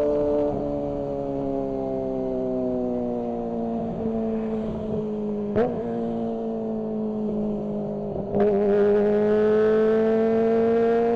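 Kawasaki ZX-25R's 250 cc inline-four engine heard onboard: the revs slowly fall away for most of the stretch, with a short sharp blip about halfway. Near the end the throttle opens, it gets suddenly louder and the revs climb steadily.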